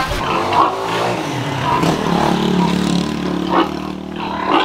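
Pigs crowding a feeding trough, grunting and squealing. A longer, low drawn-out call runs through the middle, between short sharp squeals.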